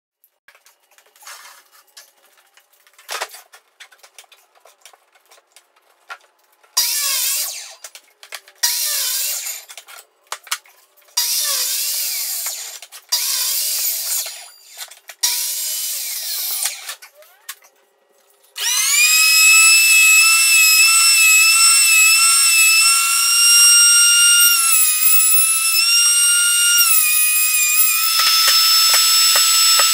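A few handling clicks, then a power miter saw making five short crosscuts through a maple board, each about a second and a half long. About two-thirds of the way through, a benchtop jointer starts and runs continuously with a high, steady motor whine whose pitch steps up and down as a board is fed across it. Near the end it gives way to a benchtop thickness planer running.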